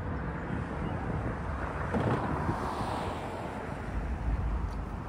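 A car driving past on the road. Its tyre and road noise swells and then fades about two to three seconds in, over wind rumbling on the microphone.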